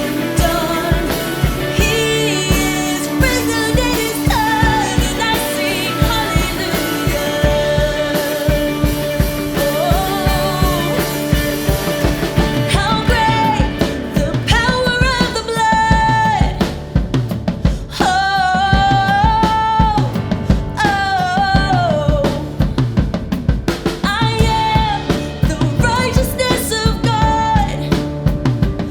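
Worship band playing an upbeat song, with a drum kit keeping a steady beat under singing voices. The singing comes in stronger about halfway through.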